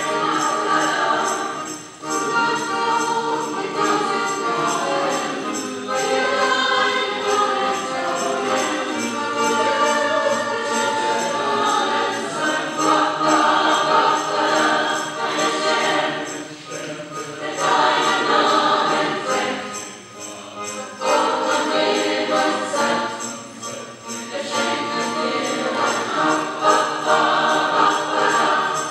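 Choir singing in full voice in German, with jingling percussion shaken in rhythm along with it.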